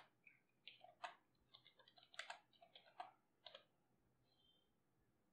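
Typing on a computer keyboard: a run of faint, irregular key clicks that stops about three and a half seconds in.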